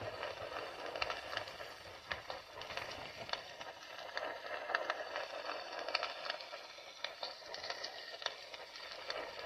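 Wood fire burning, with a steady hiss and many irregular sharp pops and crackles.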